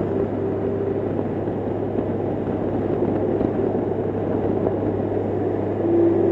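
Steady wind and road noise from a Honda Gold Wing cruising at freeway speed, with the hum of its flat-six engine underneath. The noise is even, with a faint steady tone that drops a little in pitch near the end.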